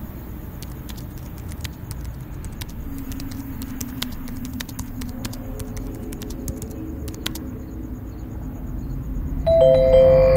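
Dark ambient film score: a low drone with scattered faint clicks, joined by a soft held tone. About nine and a half seconds in, a louder bell-like chime strikes and rings on.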